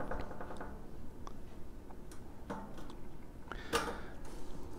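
Scattered light metallic clicks and ticks as a small, thin kit wrench turns a dome-shaped end cap nut on a chrome-plated steel dish rack frame.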